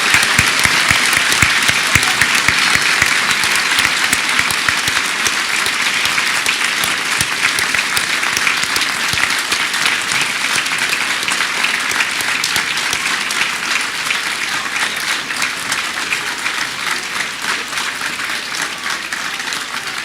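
Large crowd applauding at length, dense clapping that slowly thins and grows quieter toward the end.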